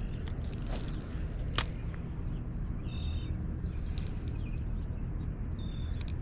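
Steady low outdoor rumble with scattered clicks and rustles, one sharp click about a second and a half in, and short high bird chirps about three seconds in and again near the end.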